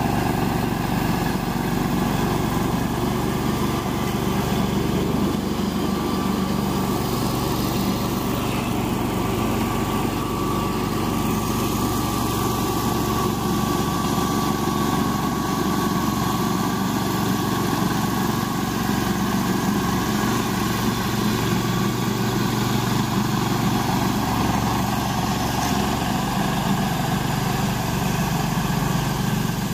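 Walk-behind brush mower's small gas engine running steadily under load as it cuts through tall, overgrown grass and weeds.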